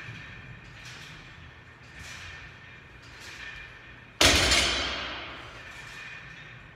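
A loaded barbell with bumper plates is set down on a rubber gym floor about four seconds in, at the end of a deadlift rep. It lands as one heavy thud, and the bar and plates ring and rattle as the sound fades.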